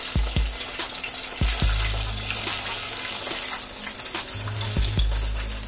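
Hot oil sizzling and hissing in a deep fryer as fried chicken is lifted out with tongs, over background music with a deep bass beat.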